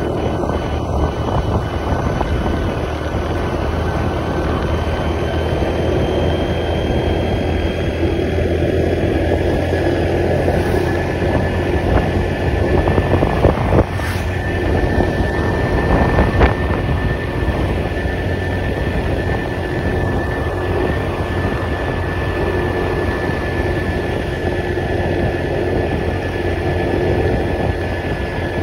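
Steady running noise of a moving vehicle, with a faint steady whine above it and a couple of brief knocks about halfway through.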